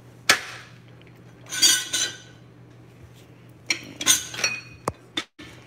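Glass and metal kitchen items clinking as they are handled on a countertop. A sharp knock comes first, then ringing glass clinks about one and a half seconds in and again around four seconds in, with a few short knocks near the end.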